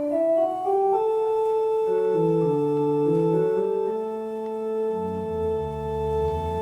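Church organ playing slow music: long sustained chords with moving inner lines stepping up and down, and low bass notes coming in about five seconds in.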